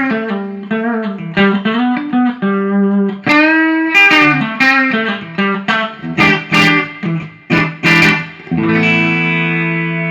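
Electric guitar played through a 1980 silverface Fender Pro Reverb tube amp: a quick run of single notes with string bends, then a chord struck near the end and left ringing. The amp is freshly recapped with new power tubes and sounding in working order.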